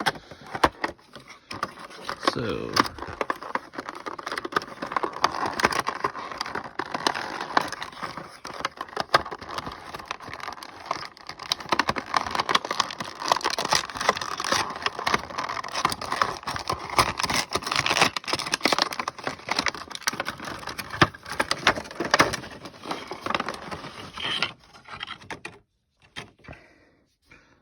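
A Pop vinyl figure's box and plastic packaging being opened and handled: continuous rustling and crinkling with many small clicks.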